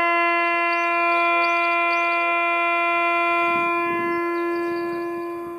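Garden-railway locomotive's horn sounding one long steady note that starts sharply and slowly fades toward the end.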